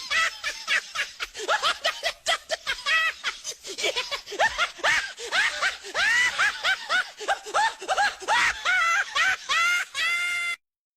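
High-pitched laughter: a run of short giggling laughs, several a second, that cuts off abruptly near the end.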